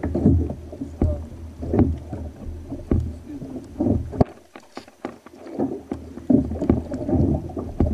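Small waves lapping and slapping against a kayak's hull in irregular surges, with a few sharp knocks.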